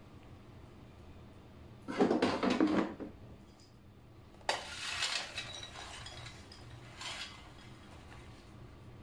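Clattering of an air fryer basket and cooked french fries as they are handled and tipped out onto a plate: a loud rattle about two seconds in, a second, longer clatter about halfway, and a short knock a little later.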